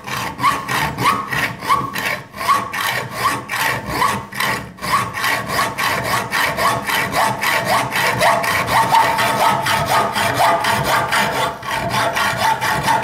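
High-tension hacksaw cutting through mild steel rod clamped in a bench vise, in steady back-and-forth strokes of about two a second. Each stroke rasps with a short rising ring from the blade.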